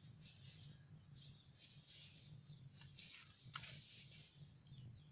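Near silence: faint outdoor ambience, with a couple of faint brief sounds about three seconds in.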